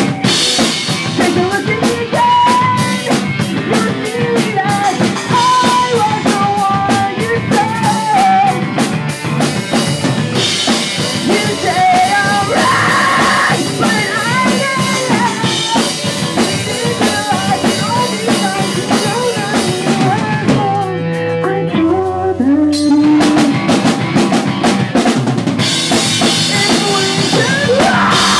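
Pop punk band playing live: drum kit with crashing cymbals, distorted guitars and bass, with sung vocals. About two-thirds of the way in, the cymbals and full drums drop out for a few seconds, then the whole band comes back in.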